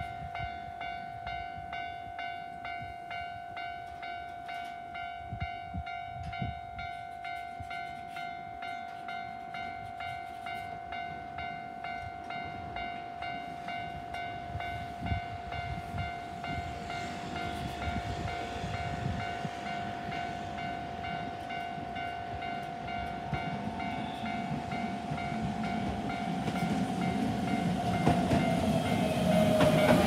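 Japanese level-crossing alarm bell ringing in a steady repeated rhythm. From about halfway through, the running noise of an approaching Keihan 10000 series electric train grows, and it becomes loud near the end as the train reaches the crossing.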